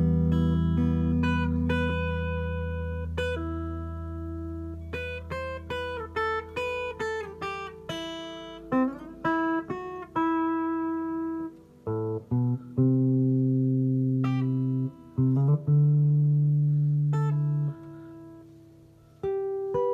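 Guitar played through a Fender Marine Layer Reverb pedal, its notes ringing on with reverb. A chord rings and fades, then comes a quick run of single picked notes, then a few held low notes, and a fresh note near the end.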